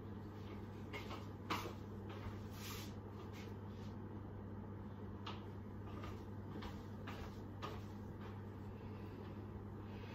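Steady low hum in a kitchen with a few scattered light knocks and clicks of things being handled, the sharpest about a second and a half in.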